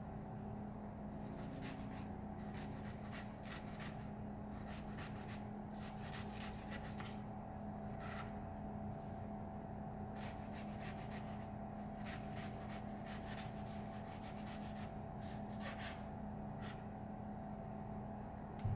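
Chef's knife slicing a red onion on a wooden cutting board: runs of quick, crisp cuts in short bursts with pauses between, over a steady low hum, with one louder knock at the very end.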